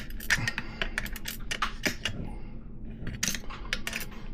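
Small metal parts and a wrench clicking and clinking against a BMX hub's threaded axle, in a quick, irregular run of light clicks.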